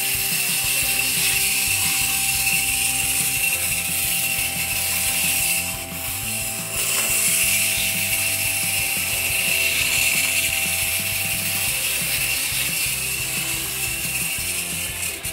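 Wind-up capsule Plarail toy engine running on plastic track: a steady mechanical whir and rattle from its spring-driven gears, dipping briefly about six seconds in.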